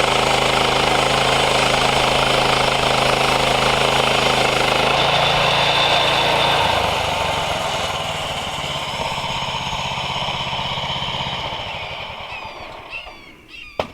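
Woodland Mills portable bandsaw mill running on its gas engine with the blade cutting through an oak log. About five seconds in, the cutting noise eases and the engine drops in pitch, then it winds down and stops near the end, with a sharp click.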